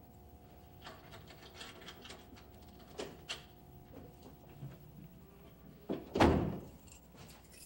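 A door latch clicking and the door thudding as it is pushed open or shut, one loud thud about six seconds in. Before it, light clicks and rustling of small objects being handled on a shelf.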